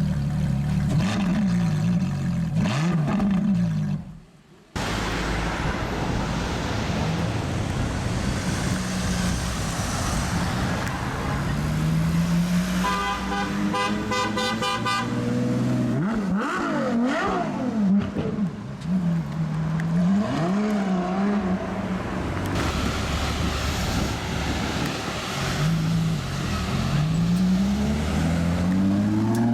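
Ferrari LaFerrari's V12 engine revving up and down and accelerating, with a car horn sounding for a few seconds about halfway through. Near the end the revs climb steeply.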